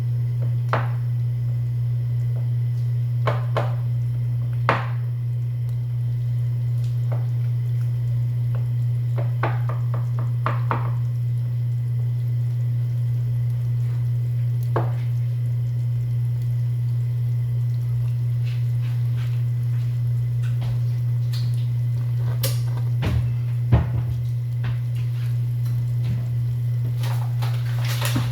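Steady low hum throughout, with scattered clinks and knocks of a utensil against a frying pan as batter fries in oil.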